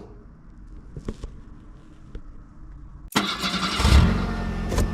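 Faint low hum with a few light clicks, then about three seconds in a car engine starts abruptly and runs loud, surging near the end.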